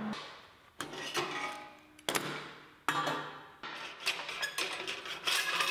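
Thin steel parts clanking together: a series of sharp metallic knocks, roughly one a second, each with a short ring, as a tack-welded steel lantern frame and its welding jig are handled.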